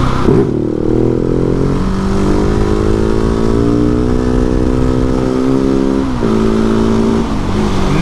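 Husqvarna 701 supermoto's big single-cylinder engine pulling through a wheelie. A quick throttle blip about half a second in, then one long pull whose pitch rises steadily for around five seconds before the throttle is backed off near the end. Wind rushes over the microphone throughout.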